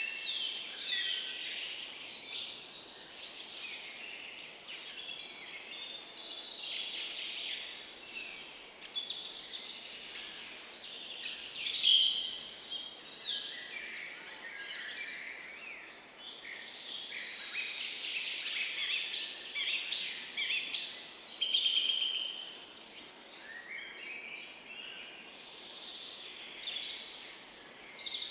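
Several birds chirping and singing at once, a continuous chorus of short, overlapping high-pitched calls, louder in patches, over a faint steady hiss.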